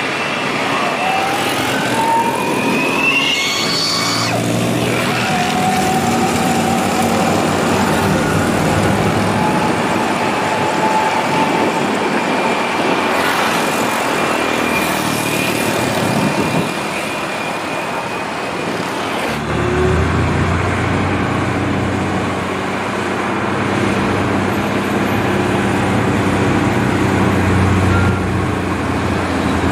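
Road traffic with heavily loaded trucks' diesel engines pulling, and engine revs rising in pitch over the first few seconds. About twenty seconds in the sound changes abruptly to a heavy truck's low, steady diesel rumble.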